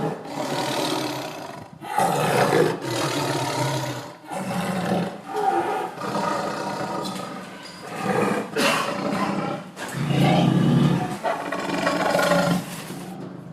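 Tiger roaring over and over, a string of loud, rough roars about one every couple of seconds.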